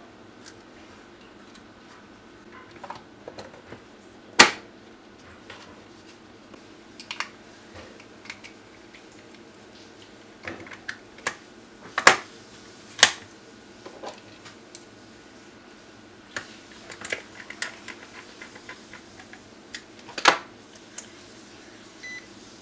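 Plastic clicks and knocks from the case of a GW Instek GDM-461 handheld digital multimeter being fitted and snapped back together and handled, with irregular sharp clicks and a few louder knocks.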